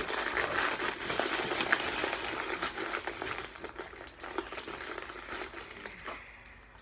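Plastic-wrapped candies crinkling and clicking against each other as a hand rummages through a bucket of candy. The sound is busy at first, then thins out and fades away over the last couple of seconds.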